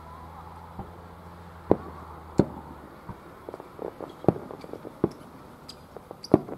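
Aerial fireworks shells bursting: about five sharp bangs at irregular intervals, with smaller pops and crackles between them. A low steady hum runs under the first half.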